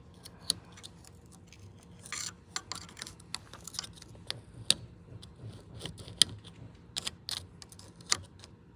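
Metal pick scraping and clicking against the ring inside a 1995 Jeep YJ's steering column, trying to get behind it to pop it out. The sound is a run of irregular small metallic clicks and short scrapes, busier from about two seconds in.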